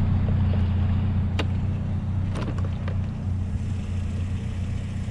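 GMC Sonoma pickup driving: steady low engine and road rumble, with a few faint clicks.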